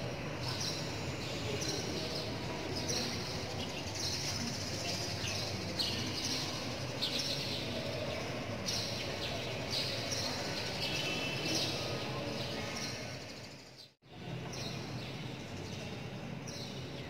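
Quiet ambience inside a large church: a steady low background hum with faint, scattered bird chirps. The sound cuts out briefly about three seconds before the end.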